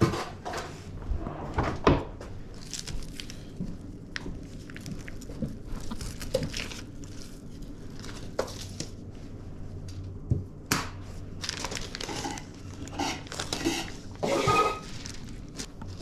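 Irregular rustling, crinkling and small knocks of hands working on a raw whole lamb carcass, with the cavity being cleaned and dried.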